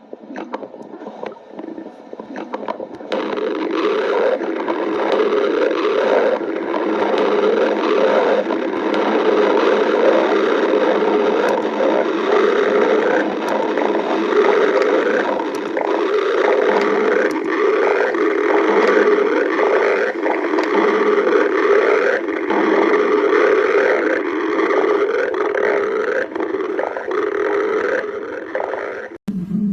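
Stomach growling: a long, loud, gurgling rumble. It builds up about three seconds in, runs on unbroken, then cuts off suddenly near the end.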